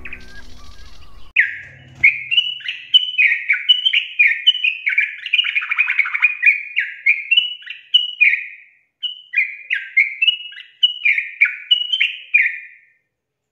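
Yellow-vented bulbul singing a long run of short, quick chattering notes. It pauses briefly about two-thirds through and stops shortly before the end.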